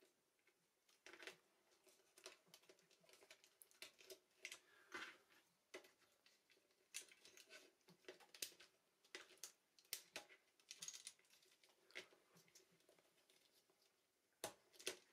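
Faint, scattered clicks and taps of empty plastic watercolour half pans being pushed and shifted into the clips of a metal palette tin.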